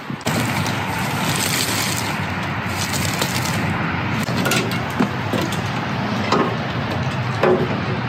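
Footsteps crunching on wet gravel: a steady rustling crunch with a few sharper clicks.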